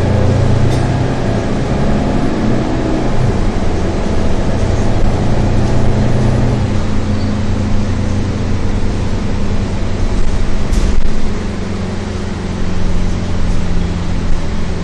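Mercedes-Benz O530 Citaro bus's diesel engine and ZF Ecolife automatic driveline running under way, heard from inside the rear of the cabin over road noise. The engine note shifts about three seconds in and again about six seconds in, then holds steady; a single sharp knock comes about eleven seconds in.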